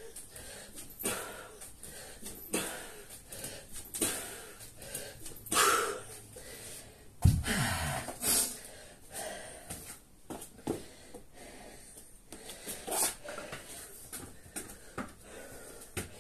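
Heavy, wheezing breathing with short sharp exhales from a man working through kettlebell swings. About seven seconds in, a single loud thud as the 53 lb kettlebell is set down on the rubber floor mat.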